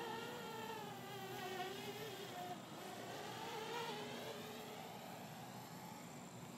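Parrot Bebop quadcopter's propellers and motors buzzing in flight, heard faintly, the pitch wavering up and down as it manoeuvres, with a dip and rise about halfway through.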